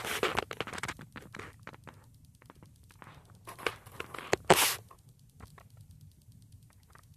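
Rustling and clicking close to a phone's microphone as it is handled, with a couple of louder rustles about three and a half to four and a half seconds in, then only faint ticks.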